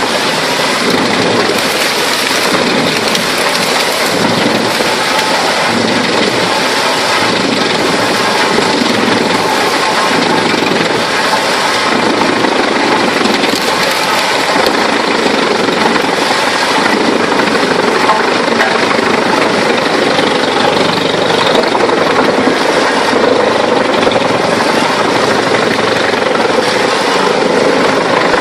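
Large wood chipper driven by a 360 hp diesel engine, running loud and steady.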